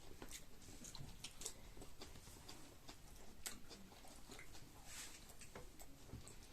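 Faint chewing of chicken, with scattered small clicks and ticks from eating.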